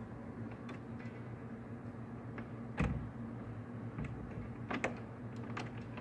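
Brass doorknob and latch of a wooden door being worked by hand, giving a few sharp clicks: the loudest about three seconds in and a couple more near five seconds. A steady low hum runs underneath.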